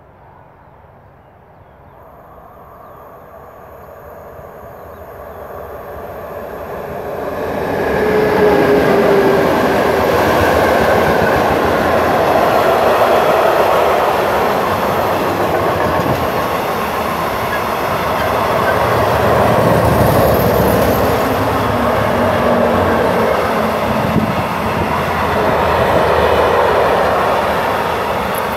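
Container freight train approaching and passing close by. The rumble swells over the first several seconds, then the wagons' wheels roll and rattle steadily on the track as the container wagons go by.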